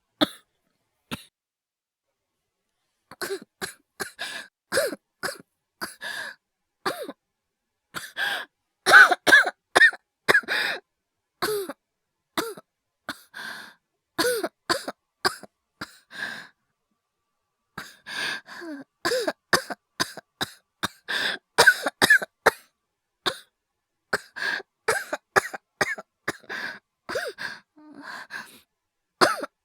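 A man's acted coughing fits: many short coughs in quick runs, with a pause of a couple of seconds near the start and another about halfway through.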